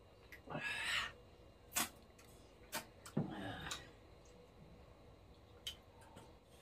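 Eating noises from people eating with their hands: a few sharp mouth clicks and lip smacks, with two short breathy sounds, one near the start and one about halfway through.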